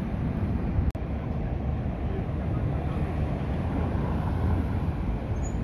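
Low outdoor rumble of wind buffeting the phone's microphone over street traffic, with a brief dropout about a second in.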